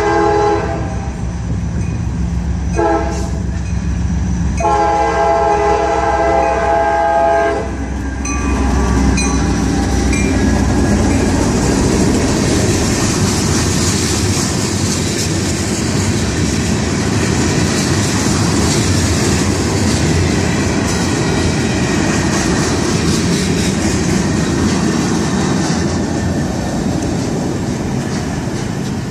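CSX freight train at a grade crossing: the lead EMD GP39-2 locomotive sounds its horn, a blast ending just after the start, a short one about three seconds in and a long one ending around eight seconds, over the deep rumble of the diesels. Then covered hopper cars roll past with steady, loud wheel-on-rail noise.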